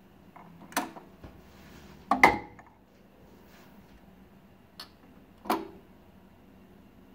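Pioneer PL-560 turntable's automatic tonearm mechanism clicking and clunking at the end of a record as the arm lifts and swings back toward its rest: four short mechanical clicks, the loudest about two seconds in.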